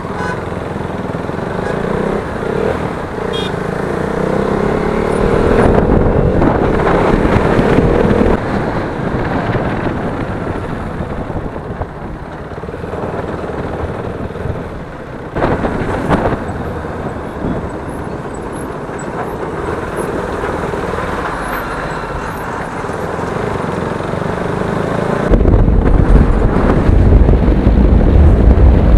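Riding a motorcycle through traffic: the engine runs steadily under road and traffic noise, and near the end heavy wind buffeting on the microphone sets in.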